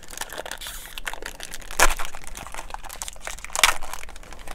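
Plastic wrapper of a 2018 Topps Gallery baseball card pack crinkling as it is torn open by hand, with two louder crackles, about two seconds in and again near the end.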